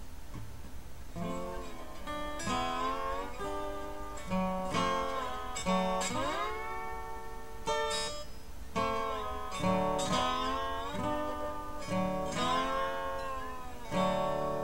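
Acoustic guitar music: picked notes and chords in a steady run, with a note sliding up in pitch about six seconds in.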